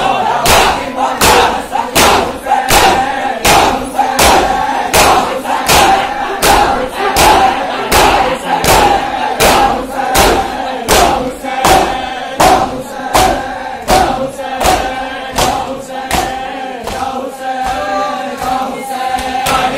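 A crowd of men chanting a noha in unison while beating their chests in matam: open-hand slaps on bare chests land together in a steady beat, about three strikes every two seconds, under the massed voices.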